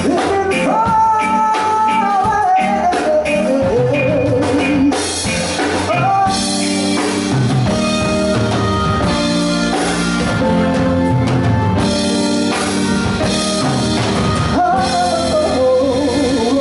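Live reggae band, drum kit and guitar, playing loudly behind a male singer on a microphone. His sung voice is heard at the start and comes back near the end.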